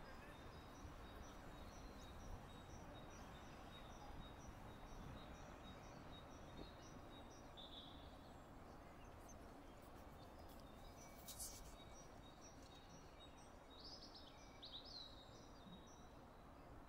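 Faint open-air park ambience: a low, steady wind rumble with birds chirping. One bird repeats a short high note about twice a second, and there is a single sharp click about eleven seconds in.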